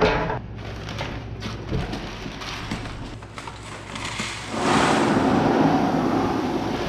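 Handling knocks from a shop vac canister. About four and a half seconds in, a steady rush of soybeans starts pouring out of the tipped canister into a seed bag.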